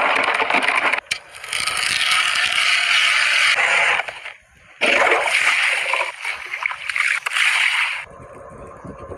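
Water splashing and sloshing in loud stretches, with brief breaks about a second in and near the middle, then fainter near the end.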